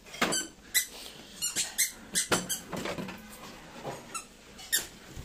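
Plastic squeaking and clicking as the air purifier's plastic casing and filter packaging are handled, in an irregular series of short squeaks.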